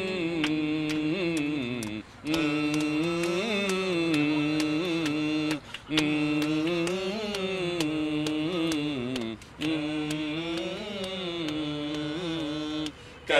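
Men singing a Malayalam song in long, drawn-out wavering notes, phrase after phrase with short breath gaps between them, over a regular sharp tapping beat.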